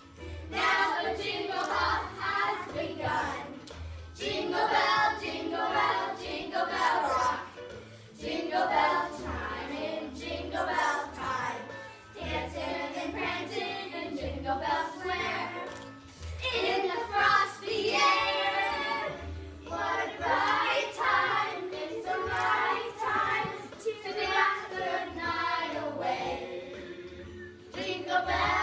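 A group of children singing together in chorus, over a steady low beat.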